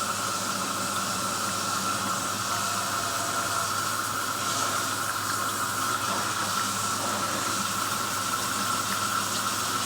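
Water running steadily into the drum of a small hand-powered washing machine as it is filled for a rinse.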